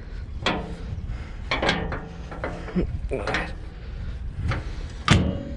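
About five short mechanical clicks and clanks, the loudest near the end, over a steady low rumble.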